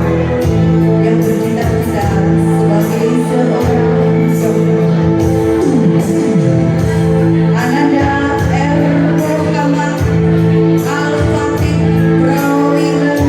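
Loud music with singing, held notes over a repeating beat.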